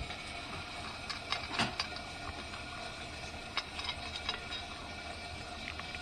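A Shiba Inu licking and eating out of a hand-held stainless-steel bowl: scattered small wet clicks and ticks of tongue and teeth against the metal, a few of them a little louder, about a second and a half in.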